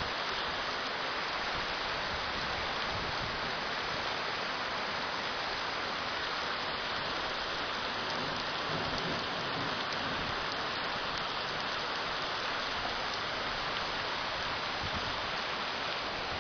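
Steady rain falling, a constant even hiss of rainfall on surfaces.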